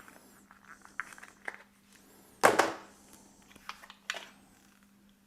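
Light plastic handling clicks and knocks as a guard is fitted on a Flowbee haircutter, with one sharper clack about two and a half seconds in and another about four seconds in, over a faint steady hum.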